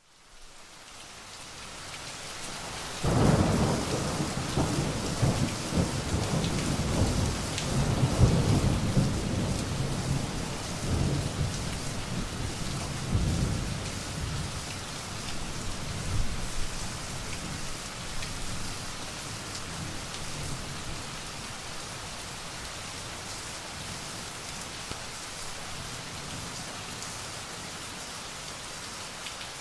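Steady rain fading in, then a sudden thunderclap about three seconds in that rolls on in rumbles with louder peaks for some ten seconds before dying away, leaving the steady rain alone.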